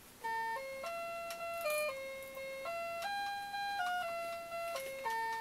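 Electronic keyboard playing a simple melody one note at a time. Each note is held steady and moves up or down in small steps, and the phrase starts over near the end.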